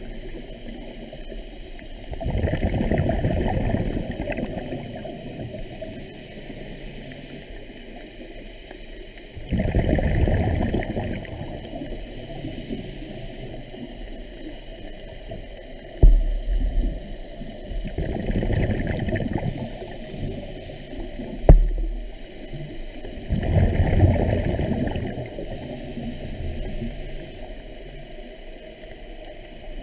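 Underwater, a scuba diver's exhaled breath bubbles out of the regulator in bursts of about two seconds, roughly every six to seven seconds. Two sharp knocks come in the second half.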